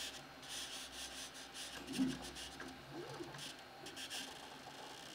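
Anycubic Chiron 3D printer moving its bed, with a faint rubbing hiss from the Y-axis and a few short creaks about two, three and four seconds in. The cause is a misaligned belt rubbing against the Y-axis motor pulley.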